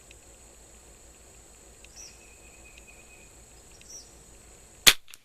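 A single shot from a Martini Mk3 .22 rimfire rifle: one sharp, loud crack near the end, with a faint click a quarter-second after it. Crickets chirr steadily throughout.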